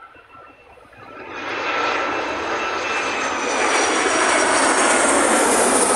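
Jet2 Holidays jet airliner on final approach, passing low overhead. Its engine roar swells up from about a second in and keeps growing louder, with a high whine over it.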